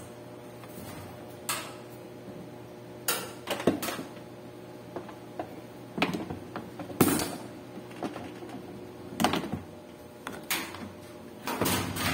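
Irregular knocks and clatters, about ten sharp hits with uneven gaps and the loudest about seven seconds in, from work on a washing machine's suspension, over a steady low hum.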